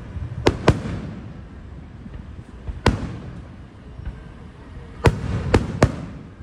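Aerial fireworks bursting overhead: six sharp bangs with echoing tails. There are two close together about half a second in, one near three seconds, and a quick run of three near the end.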